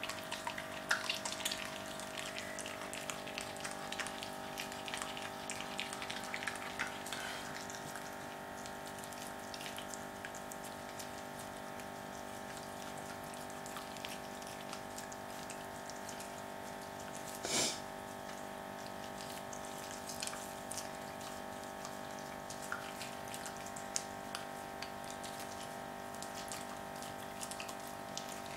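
Jack Russell terrier chewing a raw squirrel carcass: many small clicks and crackles, densest in the first several seconds and scattered after, with one louder sharp knock about two-thirds of the way through. A steady hum runs underneath throughout.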